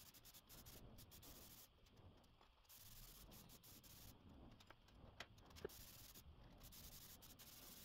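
Near silence: faint background hiss, with two faint ticks a little past halfway.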